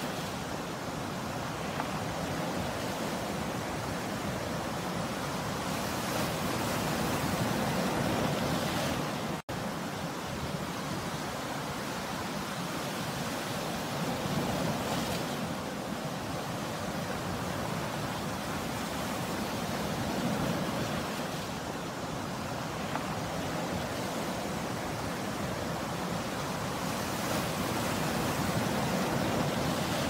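Sea surf breaking on a beach: a steady wash of noise that swells and ebbs every several seconds as waves roll in, with a momentary gap about a third of the way through.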